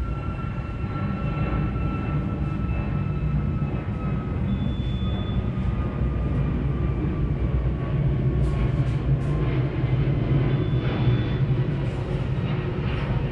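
A steady low rumble, with a few faint clicks after about eight seconds.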